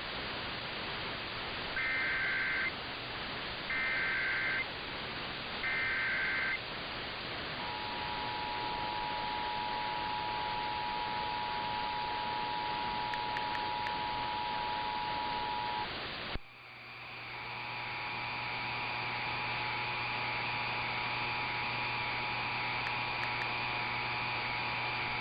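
Emergency Alert System test heard over the radio. Three short, buzzy SAME digital header bursts come about two seconds apart, then the two-tone EAS attention signal is held for about eight seconds over steady radio hiss. After a sudden cut, the two-tone attention signal sounds again from another station, with a steady higher tone and a low hum underneath.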